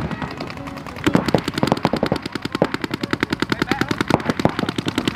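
Paintball markers firing in rapid strings of shots, roughly ten a second, starting about a second in.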